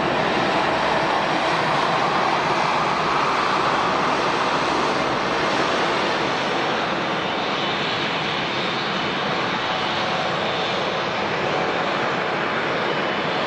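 Airliner engines running at an airport, a steady loud rushing noise whose tone shifts higher about halfway through.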